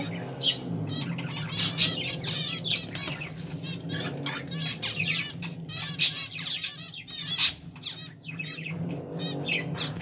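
Budgerigar chicks chirping and squawking in rapid repeated calls, with a few louder sharp calls, as a chick is tube-fed by syringe: the begging calls of hungry chicks at feeding time.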